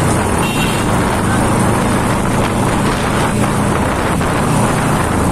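Wind rushing over the microphone while riding a sport motorcycle, with the bike's engine running steadily underneath.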